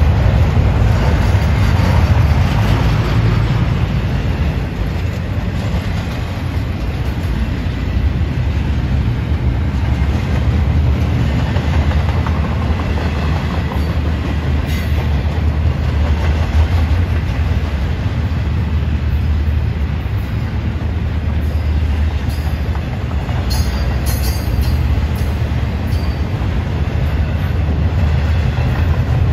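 Norfolk Southern intermodal freight train's double-stack container well cars rolling past: a steady, loud low rumble of steel wheels on the rails.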